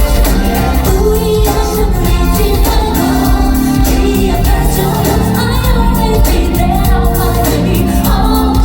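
Korean pop song performed live: a woman's singing voice over loud backing music.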